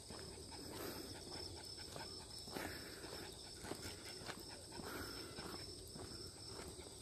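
Footsteps on a park path, the short steps scattered through, over a steady high insect drone with a second, pulsing insect trill that fades out near the end.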